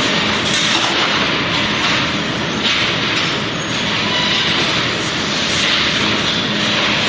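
Steady, loud mechanical noise of machinery running, an even clatter and hiss with a faint low hum.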